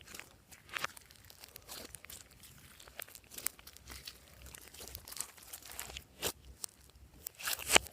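Hands working glossy slime: irregular sticky clicks and crackles, with a denser run of them near the end.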